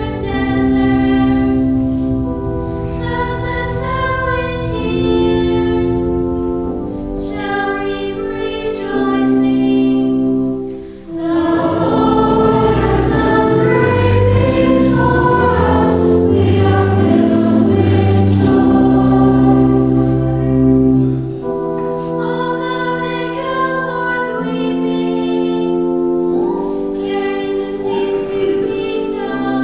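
Church cantors singing a hymn over sustained held chords. About ten seconds in, the music swells into a fuller passage with a moving bass line for about ten seconds, then settles back to the held chords.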